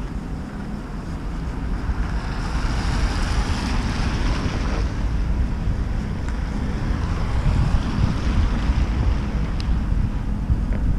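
Wind buffeting the microphone in a snowstorm, a steady low rumble, with a rushing hiss that swells and fades a few seconds in.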